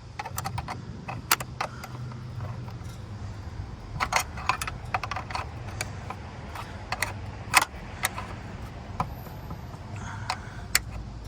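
Scattered metallic clicks and clinks of a hand tool with a 10 mm socket driving the screws back into the plastic coolant reservoir, over a steady low hum.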